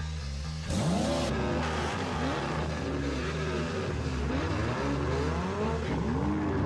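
Intro music with car engine sound effects laid over it: engines revving up and down in pitch several times over a steady bass line.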